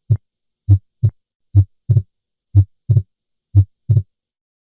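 Recorded human heart sounds, a lub-dub about once a second. At first the second heart sound (S2) is a single thump. From about two seconds in it splits into two close thumps: normal physiologic splitting of S2 with inspiration.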